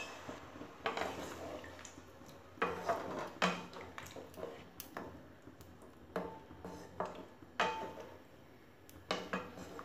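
Spatula stirring a watery potato and pumpkin curry in a non-stick kadai, scraping and knocking against the pan in about a dozen short, irregular strokes.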